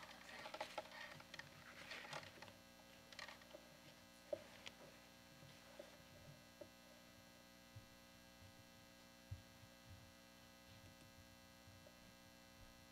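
Near silence: a steady electrical mains hum, with a few faint clicks and rustles in the first few seconds.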